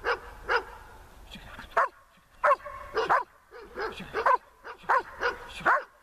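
Large black protection-trained dog giving a series of about ten short, sharp barks, roughly two a second, with a brief pause about a second and a half in.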